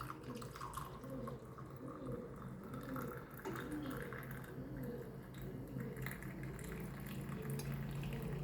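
Herbal decoction being poured through a strainer into a glass: a thin trickle of liquid with dripping.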